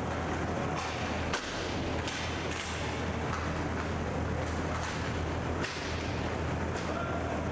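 Inline hockey play: a series of sharp clacks of sticks and puck, the loudest about a second and a half in and another near six seconds, over the steady low hum of the rink hall.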